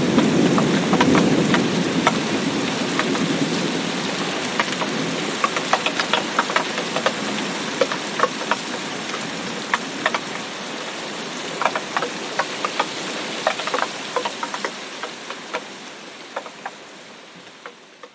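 Steady rain, with many close individual drops ticking sharply on a surface. A low thunder rumble dies away over the first few seconds, and the rain slowly fades out near the end.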